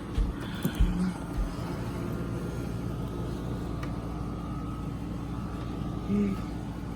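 A steady low engine rumble, with a few knocks in the first second or so and a faint, steady whine from about a second in.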